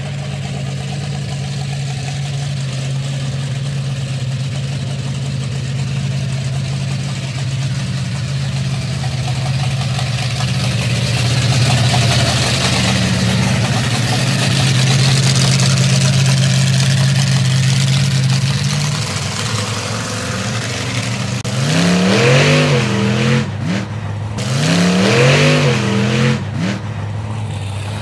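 Bigfoot 17 monster truck's 572 cu in Ford Racing V8 idling steadily. Near the end an engine is revved twice in quick blips that rise and fall.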